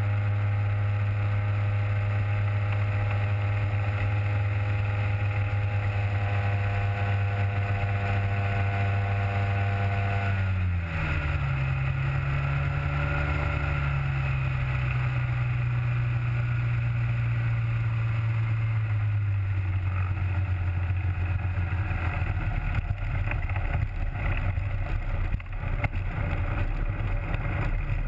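Rotax 503 two-stroke twin of a Hy-Tek Hurricane 103 ultralight with its three-blade Warp Drive propeller, running steadily at power as the aircraft rolls along the ground. About ten seconds in the throttle comes back and the engine pitch falls. It then runs lower and more unevenly, with occasional knocks and rattles near the end.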